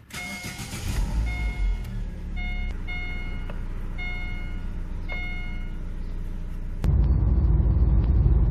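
Car's E-TEC II 16V four-cylinder engine starting and idling, heard from inside the cabin, with a dashboard warning chime beeping repeatedly over it. About seven seconds in it changes to the louder engine and road noise of the car being driven.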